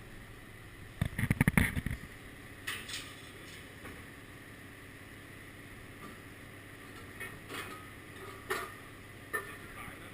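A short rattling clatter about a second in, then a few scattered single knocks and clicks, as of something being handled and moved about.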